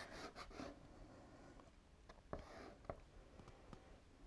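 Faint rubbing and scratching of white soft pastel on paper, with a couple of light ticks around the middle.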